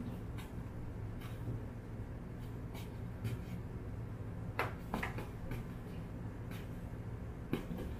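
Light taps and rubs from a kitten's paws against a long latex modelling balloon on carpet, with a few sharper taps in the middle and near the end, over a steady low room hum.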